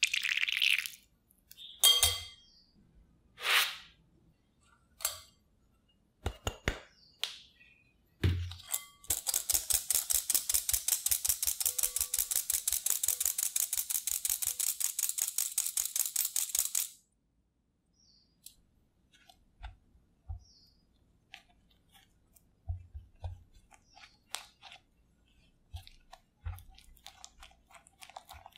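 Hand-held mesh sieve shaken over a glass bowl, sifting flour: a fast, even rattle of strokes for about eight seconds. A few sharp clinks and taps come before it, and scattered light taps follow it.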